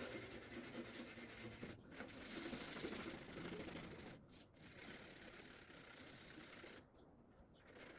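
Faint rubbing of 800-grit wet sandpaper worked by hand over a car fender, flatting the paint before primer, with a few short pauses.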